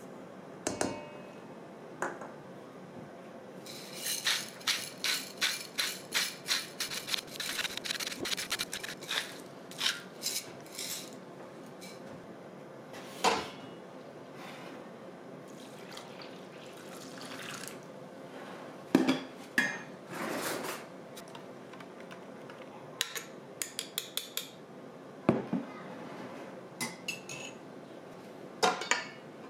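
Kitchen utensils clinking and scraping against bowls and dishes. First comes a run of quick strokes, then scattered single knocks and short clusters of clicks.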